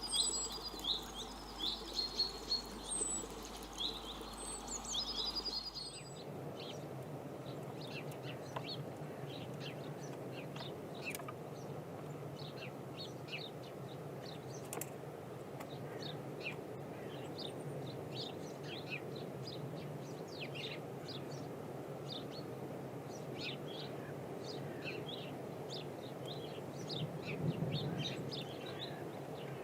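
Wild birds singing and chirping: clear, repeated whistled calls for the first six seconds, then an abrupt cut to softer, more distant chirps over a steady outdoor hiss.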